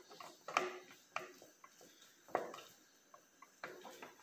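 Fingers patting and pressing raw ground beef into a frying pan: faint, soft, irregular taps about a second apart.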